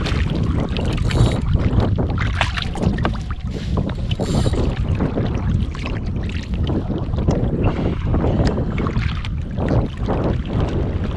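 Wind rumbling on the microphone over water lapping against a kayak hull, with scattered small knocks and ticks.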